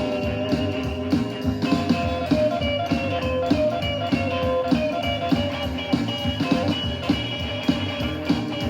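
Instrumental break of a psychobilly rock song: electric guitar playing over a steady drum beat, with no singing.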